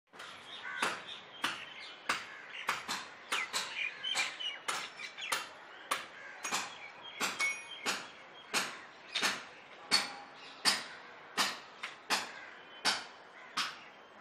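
Crows cawing over and over, a short harsh call roughly every two-thirds of a second, with smaller birds chirping faintly underneath.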